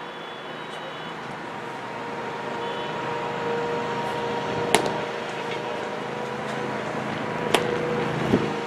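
Two sharp leather pops about three seconds apart, pitches smacking into catchers' mitts, followed by a duller knock near the end. Underneath runs a steady motor hum that slowly grows louder.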